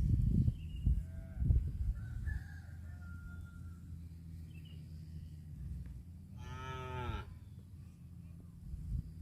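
A cow mooing once, a short call whose pitch drops at the end, about two-thirds of the way in. Before it come a couple of low thumps in the first second and a half, over a steady low hum.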